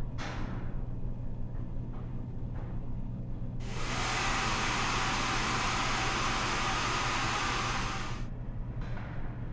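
Electric hand dryer blowing: a loud, even rush of air switches on about three and a half seconds in and cuts off abruptly some four and a half seconds later, over a constant low hum, with a few faint knocks before it.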